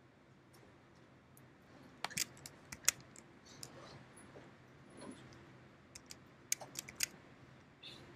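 Scattered clicks of a computer keyboard and mouse being pressed, irregular and faint, mostly between about two and seven seconds in, over a low steady hum.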